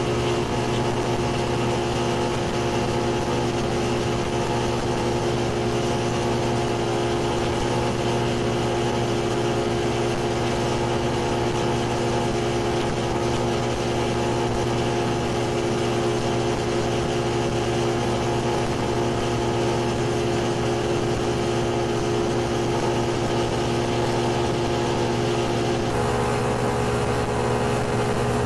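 Bass boat's outboard motor running steadily at an even speed, its pitch unchanging.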